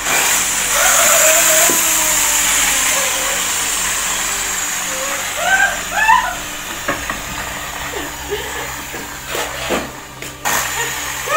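A loud rushing hiss starts suddenly and slowly fades, with a high tone gliding downward through it. Short, strained, rising cries from a person come about five and six seconds in.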